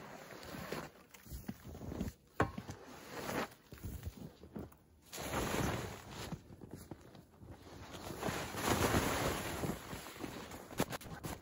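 Yard rake dragging snow off a fabric shelter roof: several long swishing scrapes as snow slides down the fabric, with a sharp knock about two seconds in.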